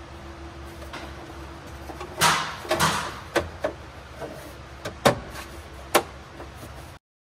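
Sharp clicks and knocks of tools and metal parts being handled during hands-on work on a tractor's hydraulic fittings, over a steady low hum. There is a loud cluster about two seconds in, then single clicks near three and a half, five and six seconds. The sound cuts off suddenly near the end.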